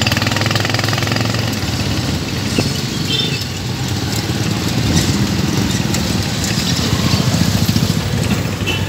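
Small motorcycle engines of tricycles (motorcycles with sidecars) and motorcycles running close by in street traffic. It is a steady low engine note that dips a little midway and rises again near the end.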